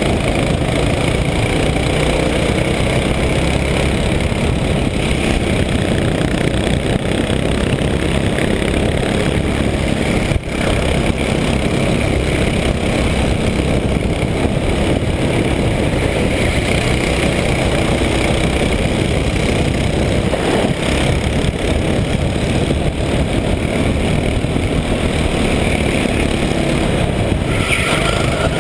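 Go-kart engine running steadily at racing speed, heard from a camera mounted on the kart, as a dense, steady noise.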